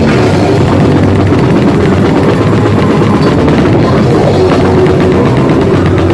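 Grindcore band playing loud and without a break in rehearsal: a dense wall of band sound driven by fast drum-kit hits.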